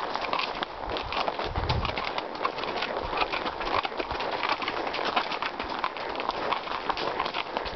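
Hooves of two ponies crunching steadily on a gravel track, a dense run of small clicks and scrunches with the footfalls.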